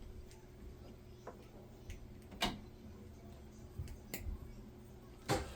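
A few sparse, sharp plastic clicks, the loudest about two and a half seconds in: small RC model kit parts being removed from their plastic sprue.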